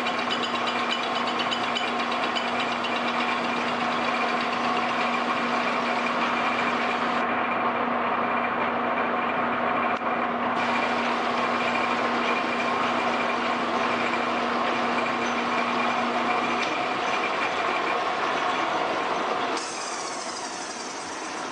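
Metal lathe running, turning the face of a dividing-head plate hub with a steady machine whine and hum. About 19½ s in the sound drops slightly and changes.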